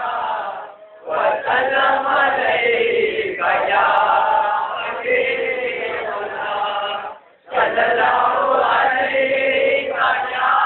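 A group of voices chanting an Islamic devotional refrain together, a salawat on the Prophet. The chant breaks off briefly twice between phrases, about a second in and about seven seconds in.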